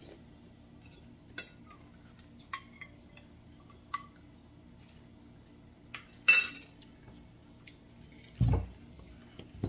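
Metal spoon clinking against ceramic bowls as someone eats, a few short clinks spread out, with a louder clatter about six seconds in and a dull low thump near the end.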